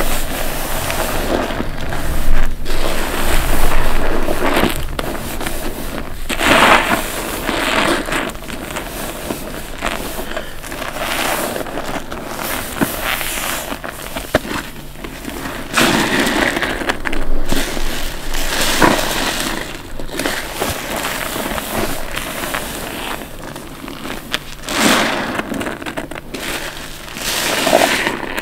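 Soapy wet sponges squeezed by hand over and over, each squeeze a wet squelch every second or few, some stronger than others.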